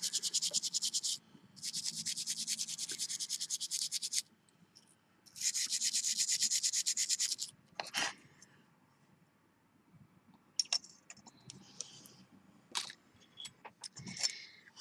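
A brush scrubbing a freshly soldered sterling silver piece in quick, rapid strokes, in three spells over the first seven or so seconds: cleaning off the flux residue between solder passes. A single click follows, then a few light taps.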